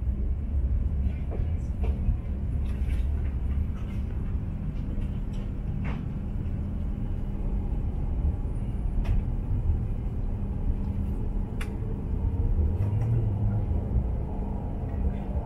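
Low, steady rumble of an H5 series Shinkansen heard from inside the passenger cabin as the train rolls slowly through a station, with a steady hum and a few faint ticks.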